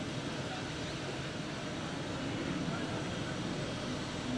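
Steady, distant jet engine noise from a Boeing 767 freighter taxiing at idle power, heard across an airport as an even rumble and hiss, with faint voices nearby.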